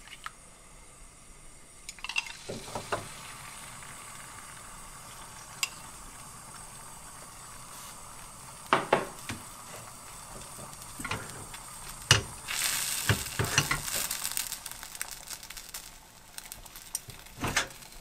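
Beaten egg sizzling in an oiled nonstick frying pan as a thin omelette sheet sets, with scattered clicks and taps of utensils and the pan being handled. The sizzle gets louder and hissier about twelve seconds in.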